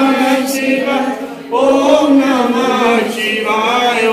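Voices chanting a Hindu mantra in long, held notes, with a brief break about a second and a half in.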